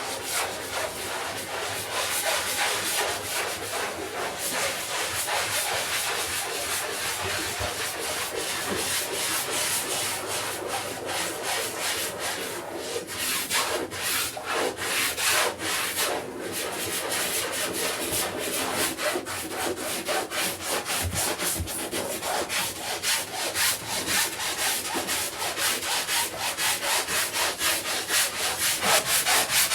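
A brush scrubbing a rug's pile in quick, rhythmic back-and-forth strokes, most even and rapid in the second half.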